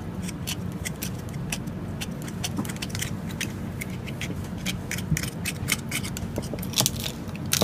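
Oyster knife scraping and clicking against the shell of a raw oyster as it cuts the adductor muscle free from the top shell: many quick, irregular clicks and scrapes, a few louder ones near the end, over a steady low hum.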